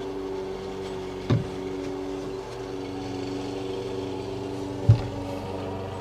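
A steady low machine hum made of a few even tones, with two short knocks, about a second in and near the end, as the outlet unit is handled against the plywood cabinet top.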